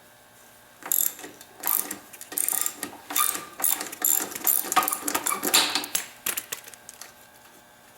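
Hand tools working bolts, with quick runs of metal-on-metal clicking and rattling in irregular bursts, like a ratcheting wrench being worked back and forth.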